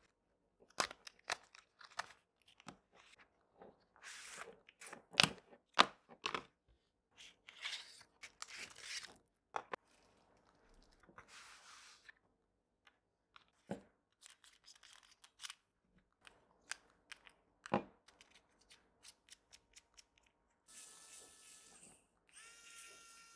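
Cardboard packaging being handled: a box and tray sliding and rustling, with scattered sharp clicks and knocks as parts are taken out and a bit is fitted. Near the end the Wowstick mini electric precision screwdriver's small motor whirs with a steady whine, in two short runs.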